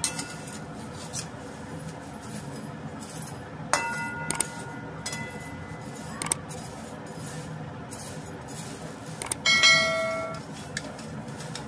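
Metal slotted spoon stirring dry vermicelli in a metal kadhai, scraping and tapping the pan while it roasts on low heat. The spoon strikes the pan with a ringing clang about four seconds in and again, louder and longer, near ten seconds.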